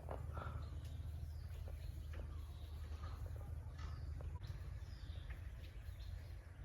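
Outdoor ambience: a steady low rumble with faint short falling bird chirps now and then, and a few light clicks.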